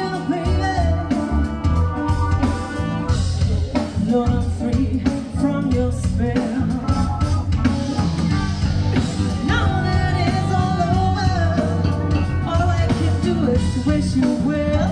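Rock music with singing over guitar and a steady drum beat.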